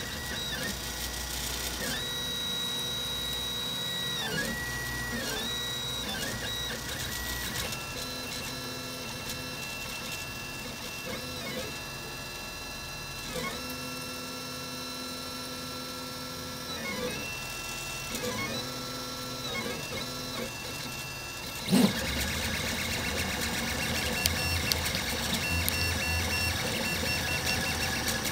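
Velleman K8200 3D printer printing: its stepper motors whine in steady tones that jump to new pitches each time the print head changes direction. About 22 seconds in there is a sharp knock, after which a low rumble runs under the whine.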